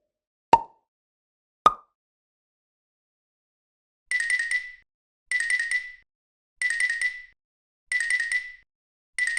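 Two short plucked pops, the second higher in pitch, then a bell trilling in short rings about every 1.3 seconds, starting about four seconds in: a cartoon railroad crossing alarm bell.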